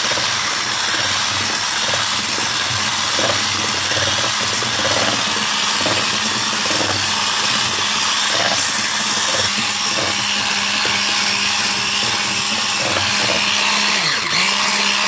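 Electric hand mixer running steadily, its twin beaters whisking cake batter in a plastic bowl. The motor's pitch dips briefly near the end.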